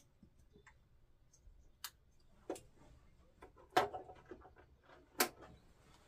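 Sharp clicks and small knocks from hand work on a Vaillant boiler's diverter valve motor: four louder clicks spread out, with fainter ticks between.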